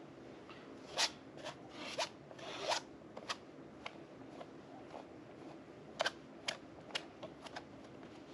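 Metal palette knife scraping and spreading thick modelling paste across a canvas: a series of short, irregular scraping strokes, one drawn out a little longer about two seconds in.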